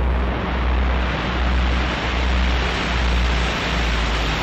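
Road and wind noise inside a moving car's cabin, with a heavy low rumble that swells and fades about every second.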